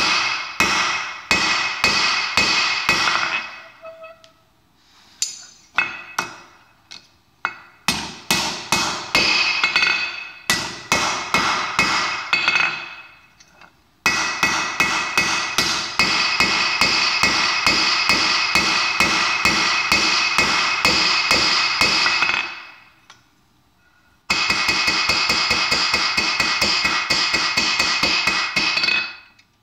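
Hand hammer striking red-hot 3/8-inch mild steel rod on a steel anvil to flatten the tips of a slingshot fork. Runs of rapid ringing blows, about three to four a second, with short breaks between the runs.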